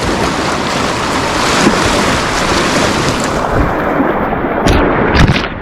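Fast river rapids rushing close to the microphone, a steady loud whitewater wash. Two sharp thumps come about five seconds in.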